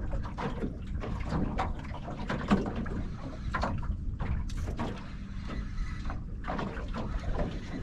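Small boat on the water: irregular knocks and rattles over a steady low rumble of wind and water.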